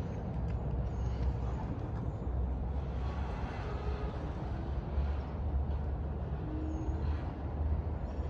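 Disney Skyliner gondola system running: a steady low rumble with a few faint, short high squeaks.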